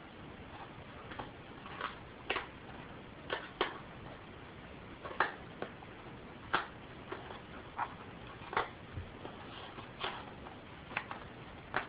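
Packaging being handled and pried open by hand: irregular sharp clicks and snaps, about a dozen spread unevenly, over a steady faint hiss.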